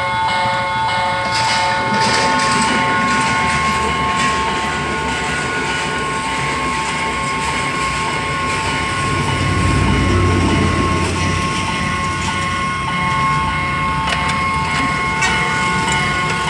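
Passenger train passing a level crossing close by, its rumble swelling to a peak about halfway through, with the clatter of wheels over the rails. Several steady high-pitched tones ring over it throughout.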